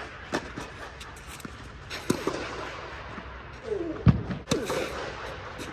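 Tennis rally: rackets striking the ball back and forth, a sharp pop about every two seconds with the loudest about four seconds in, echoing in a large indoor dome hall. A short falling vocal grunt comes just before and after the loudest hit.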